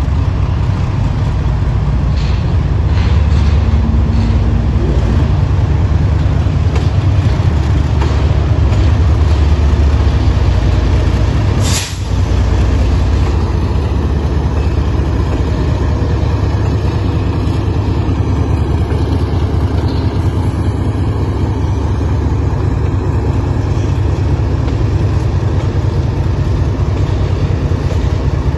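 Diesel freight locomotive running close by: a loud, steady low rumble. There is a single brief sharp click about twelve seconds in.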